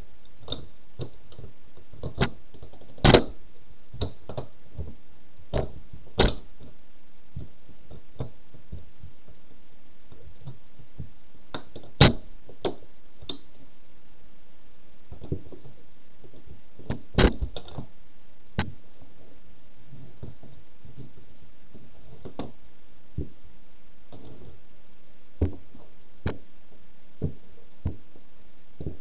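Plastic toy race car being crushed under red platform high heels: irregular sharp clicks and knocks of the plastic body giving under the pressing heels, with a few louder cracks among them.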